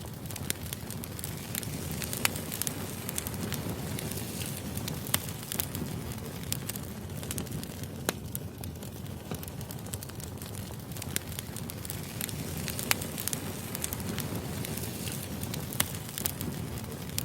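Wood fire burning: a steady low rumble with irregular sharp crackles and pops of burning firewood.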